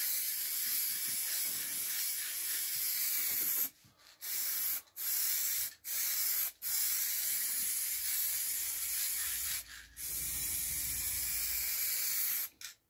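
Aerosol spray paint can spraying in a steady hiss, broken by several short breaks where the nozzle is let go, and stopping near the end.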